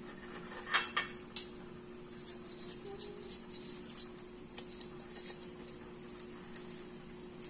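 Kitchen tongs knocking against roast potatoes and a ceramic plate: three sharp clicks about a second in, then a few lighter ticks, over a faint steady hum.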